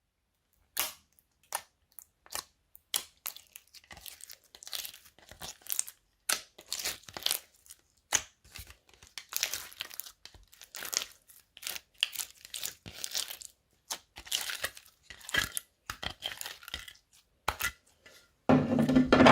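Slime being kneaded and stretched by hand: a run of irregular sticky crackles and small pops as it pulls apart and traps air, with one louder, lower squelch near the end.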